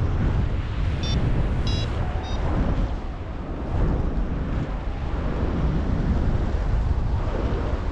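Strong wind buffeting the microphone, a steady heavy rumble. A few short high-pitched beeps sound in the first few seconds.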